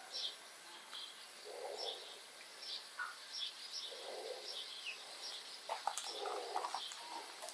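Faint birdsong: short high chirps from small birds, and a soft low cooing note repeated about every two seconds.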